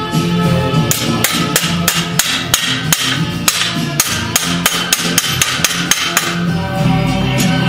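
Rapid sharp hammer-like knocks, about four a second, starting about a second in and stopping a little after six seconds, over background music.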